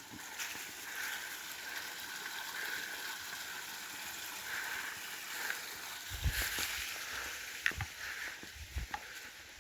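A small creek trickling under a trail, a steady hiss of running water. From about six seconds in, footsteps on the trail thump and crunch over it.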